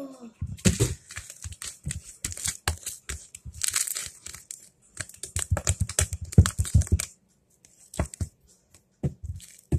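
Pink slime being squeezed and pressed by hand on a countertop: a fast run of wet crackles and pops, thinning to a few separate pops in the last couple of seconds.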